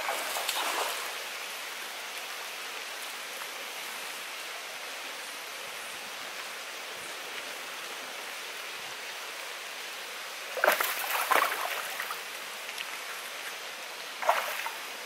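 Steady rush of running water, broken by short bursts of splashing about eleven and fourteen seconds in from a hooked largemouth bass thrashing at the surface during the fight.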